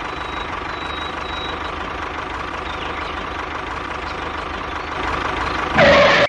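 A miniature tractor's small motor running steadily at a constant pace. A brief, louder sound breaks in just before the end.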